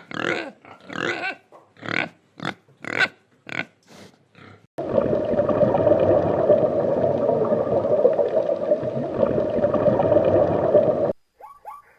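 Farm animals calling: a quick series of short calls, about two a second, then from about five seconds in a dense, steady din of many animals that cuts off suddenly near the end.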